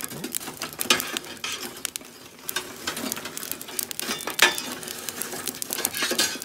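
Burning charcoal being raked in the steel fire basket of an Asado grill: a metal tool scraping and knocking against the basket bars while lumps of charcoal rattle and drop through onto the ember bed. Irregular clicks and scrapes, with sharper knocks about a second in and again about four and a half seconds in.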